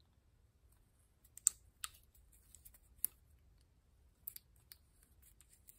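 A handful of sharp, separate clicks and light taps as small metal and plastic parts of a worklight are handled during disassembly, with the aluminum screw ring and circuit board coming out. The loudest click falls about three seconds in.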